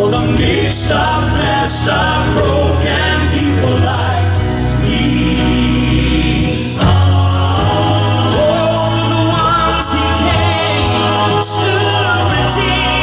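Male southern gospel quartet (tenor, lead, baritone and bass) singing in close four-part harmony through microphones and a PA, over instrumental accompaniment with a steady low bass line.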